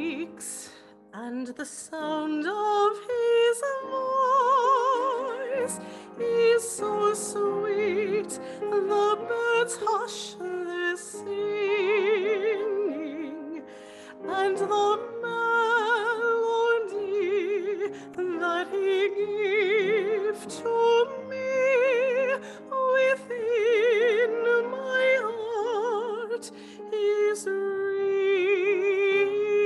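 A woman singing a solo with a wide vibrato, accompanied by an upright piano.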